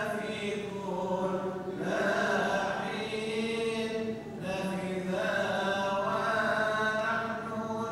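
Coptic Orthodox liturgical chanting during Holy Communion: a melodic chanted line, held on and sliding between notes, with brief breaths about two and four seconds in.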